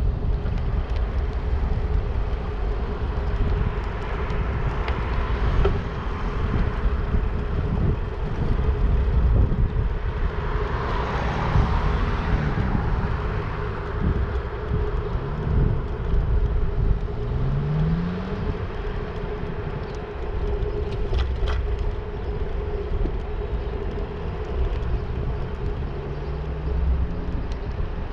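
Wind rumbling on the microphone of a handlebar-mounted camera while riding along a road, with a steady hum underneath and cars passing. A louder rush of passing traffic comes about eleven seconds in.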